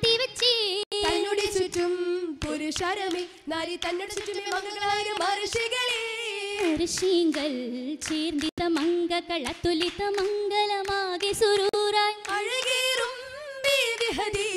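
Group voices singing a Mappila oppana song, with sharp rhythmic hand-clapping from the dancers beating time under the melody.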